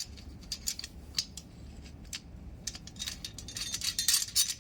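Small metal parts and screws clicking and clinking as a machine part is handled and screwed on by hand; scattered clicks that come quicker and louder in the last second or so.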